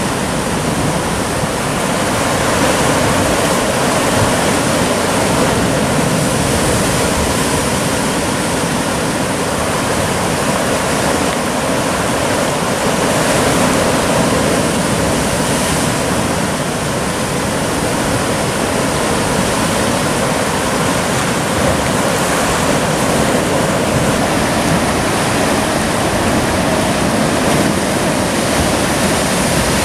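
Sea surf washing and breaking over rocks: a steady loud rush of water with no single wave standing out.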